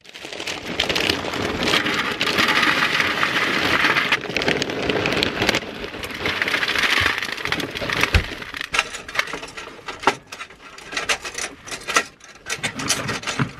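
Dry cereal poured from a plastic bag into a plastic bowl: a dense, loud rattling patter in two pours, the first about five seconds long and the second shorter, then a soft thump and scattered ticks as the pieces settle. Near the end, milk is poured into the bowl.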